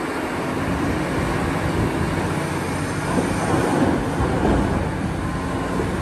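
Steady engine and machinery rumble of a Caterpillar 6015B hydraulic mining excavator at work loading a dump truck, swelling a little around the middle.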